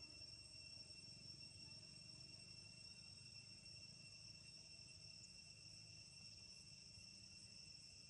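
Faint, steady insect chorus: a constant high-pitched chirring drone that does not change.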